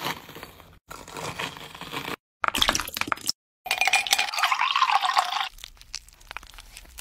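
A quick series of drink-making sounds in a glass: a stainless-steel muddler crushing pomegranate seeds, ice cubes clinking into the glass, then liquid pouring in and whipped cream being piped from a bag. Each sound is short and breaks off sharply.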